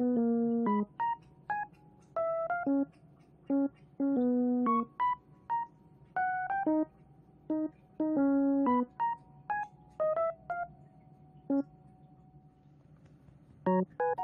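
Background music: a light keyboard tune in an electric-piano sound, played as short chords and single notes with brief pauses between them.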